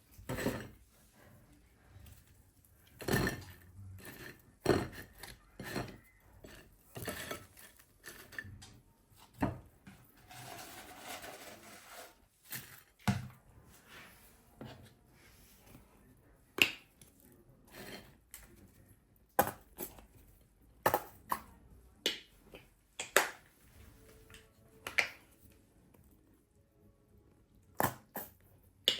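Scattered clinks and knocks of dishes and cutlery being handled, irregular and spread out, with a short rustle about ten seconds in.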